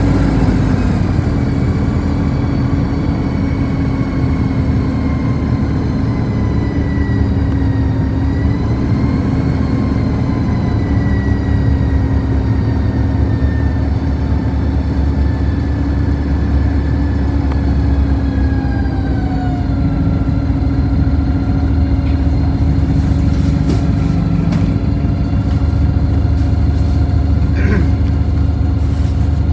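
City bus heard from inside, moving with a steady running hum and a pitched whine that slides lower as it slows, dropping sharply about two-thirds through as the bus comes to a stop. It then runs on steadily at a standstill, with a few short clicks near the end.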